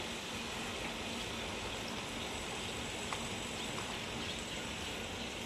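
Steady outdoor background hiss, with a few faint, short bird chirps about three to four seconds in.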